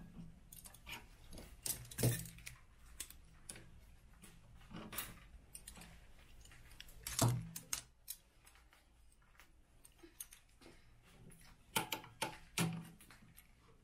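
Light metal clicks and clinks of a motorcycle brake rod and its small fittings being worked into place by hand. The clicks come irregularly, with a few louder knocks about two seconds in, about seven seconds in and near the end.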